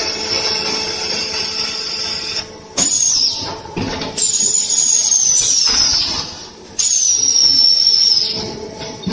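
Hydraulic concrete terrazzo tile press working: a steady mechanical hum under a high whine that stops about two seconds in, then three more high whines that start abruptly and sink in pitch, each a second or two long, as the press cycles.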